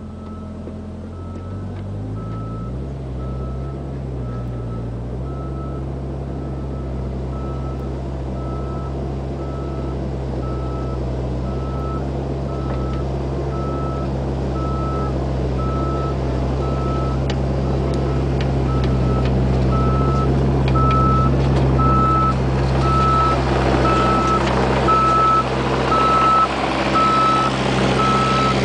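Bobcat mini excavator's diesel engine running, its pitch stepping up about two seconds in, with the travel alarm beeping at an even pace. The sound grows steadily louder as the machine comes closer.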